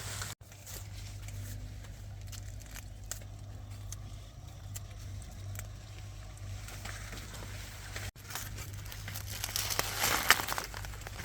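Dry rustling and crinkling with scattered small clicks over a steady low hum. The rustling grows louder near the end, and the sound drops out briefly twice.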